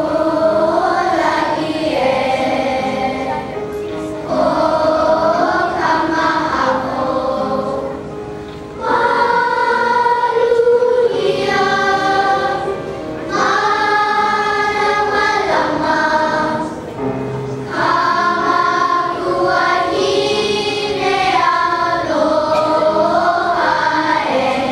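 Large children's choir singing together in phrases of a few seconds, each phrase separated by a short breath pause.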